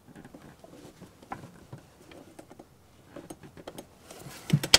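Small clicks and taps of hands fitting a small pin back into a Mercedes-Benz 240D's throttle linkage, scattered and irregular, with a quick run of sharper clicks near the end.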